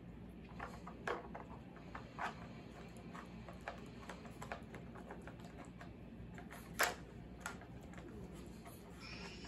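Pieces of a plastic dog puzzle toy clicking and clacking at irregular intervals as a dog noses at them, with one louder clack about two-thirds of the way through.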